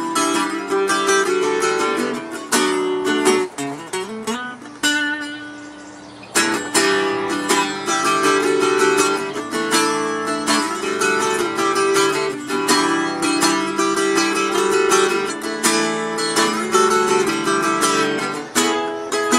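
Acoustic guitar played solo, with fast picked and strummed notes. It quietens to a few ringing notes about four seconds in, then comes back in full about six seconds in.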